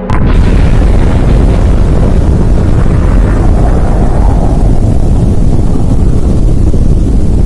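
Loud, steady rumbling noise, heavy in the bass, that starts abruptly and holds without fading: an explosion-like rumble sound effect.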